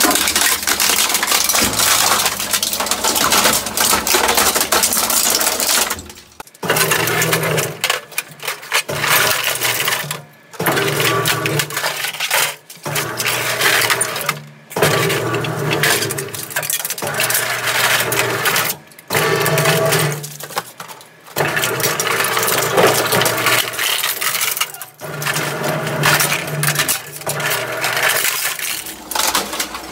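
Twin-shaft industrial shredder grinding up a printer: the plastic casing and metal frame crack, crunch and snap between the cutter discs over the machine's low hum. Continuous for about six seconds, then broken by short pauses every couple of seconds as the shredder bites into the printer in turns.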